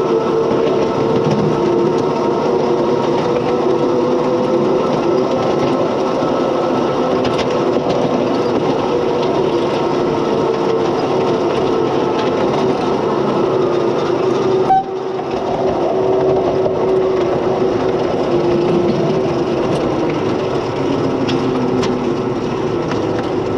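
A 7¼-inch gauge miniature mining locomotive running, heard from its cab: a steady drone of motor and wheels on the rails with a constant hum. The sound briefly drops out about fifteen seconds in.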